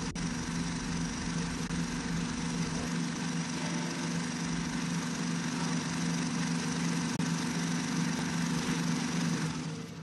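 A steady motor drone: a continuous low hum over a hiss.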